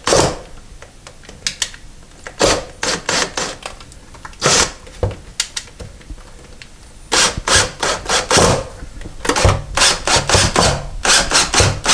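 Cordless DeWalt drill driving a screw through the aluminium side of a recessed medicine cabinet, in short stop-and-go bursts with a rasping, clicking grind as the screw bites. There is a pause of a couple of seconds near the middle, then a quicker run of bursts.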